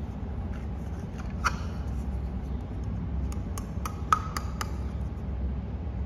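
Plastic toy pastries clicking and tapping against each other in the hands: one sharp tap about a second and a half in, then a quick run of about six light clicks around the middle. A steady low background rumble runs underneath.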